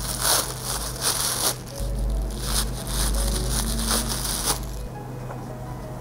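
Tissue paper crinkling and rustling in several bursts as it is pulled out of a doll dress's sleeves, stopping about four and a half seconds in. Faint background music.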